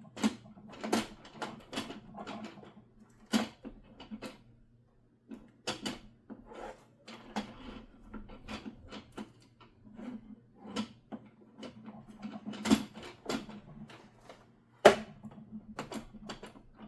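Irregular clicks and knocks of a sewing machine's extension table being handled and pushed onto the machine, with one sharp knock about fifteen seconds in.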